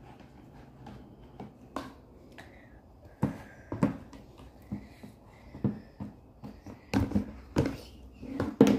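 Wooden spoon stirring thick glue slime in a plastic tub, with irregular knocks of the spoon against the tub. The knocks come more often and louder from about three seconds in.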